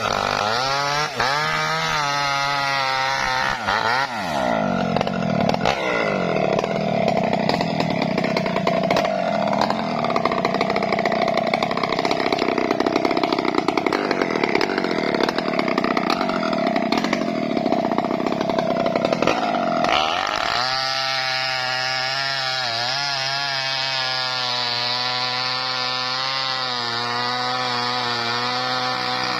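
Small Maestro chainsaw engine cutting lengthwise through a coconut palm trunk. It revs up and down for the first few seconds, then labours in the cut for about fifteen seconds with the chain tearing through the wood, and runs steady and high with no load over the last stretch.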